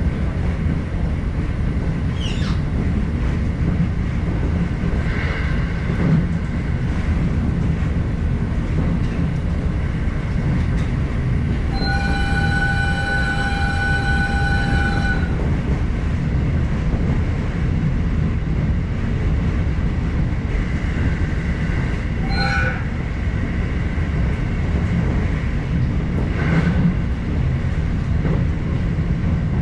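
Electric commuter train running along the line, heard from inside just behind the driver's cab as a steady rumble of wheels on rail. About twelve seconds in, the train's horn sounds as one steady tone for about three seconds, and a few brief higher-pitched squeaks come and go.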